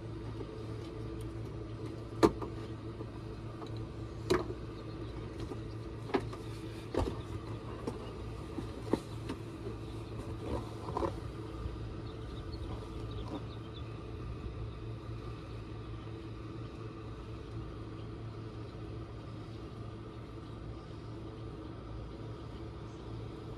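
Boat motor idling with a steady low hum. Sharp clicks and knocks come now and then in the first half, the loudest about two seconds in.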